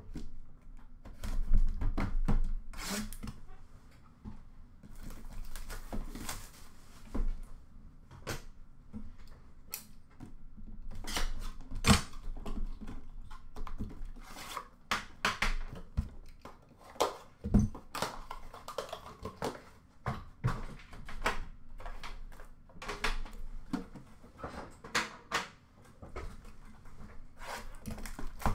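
A cardboard card box being opened by hand and its card tin slid out and set down: irregular rustles, scrapes and light taps of cardboard and tin.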